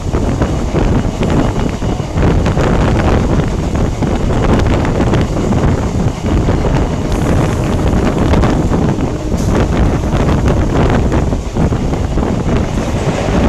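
Wind buffeting the microphone held out of a moving passenger train's open doorway, over the steady rumble of the train running on the rails.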